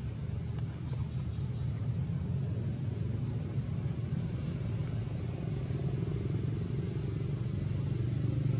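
Steady low rumble of a motor vehicle engine running nearby, slowly growing louder.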